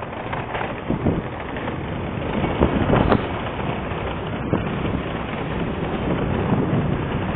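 Wind buffeting the microphone over the steady running noise of a moving vehicle, with a few brief knocks.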